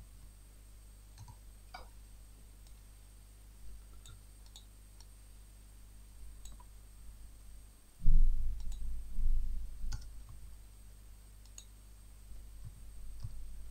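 Scattered clicks of a computer keyboard and mouse as code is typed, selected and pasted. A loud low rumble starts suddenly about eight seconds in and lasts about two seconds.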